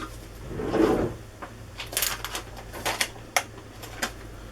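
Paper cake cases being handled and pulled apart, giving a run of sharp, short crinkling crackles from about two seconds in, after a soft low sound about a second in.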